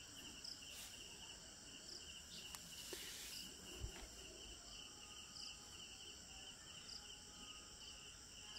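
Faint cricket chirping, a steady pulsing high trill, with one soft knock about four seconds in.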